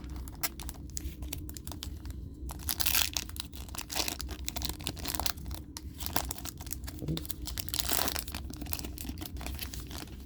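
Foil wrapper of a Yu-Gi-Oh! booster pack being torn open and crinkled, a dense crackling that gets heavier about three seconds in and again near the eighth second.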